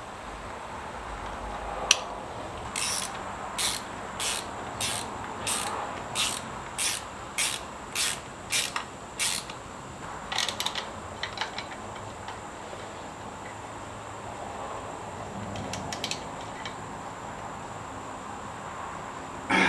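Ratchet wrench clicking through a quick run of about eleven short strokes, roughly one every 0.6 seconds, as bolts on a motorcycle air intake are snugged up. A few scattered clicks follow.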